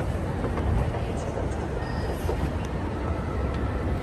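Schindler 9300AE escalator running, heard from on board: a steady, even low rumble of the moving steps and drive, with a few faint ticks.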